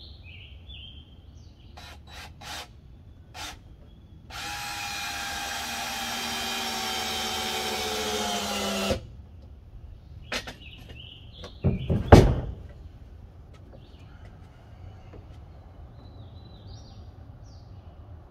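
A power drill drives a screw into a wooden frame for about four and a half seconds. Its whine drops slightly in pitch and gets louder as the screw bites, then stops with a click. A few sharp knocks follow, the loudest a heavy thump about twelve seconds in, while birds chirp throughout.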